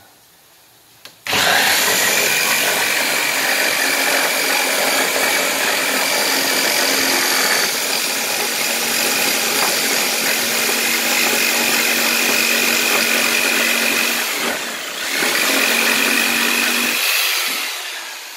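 Ryobi 4.8-amp variable-speed jigsaw cutting a wooden board: the saw starts about a second in and runs steadily with a high whine, eases off briefly near the end, then runs a couple more seconds before winding down.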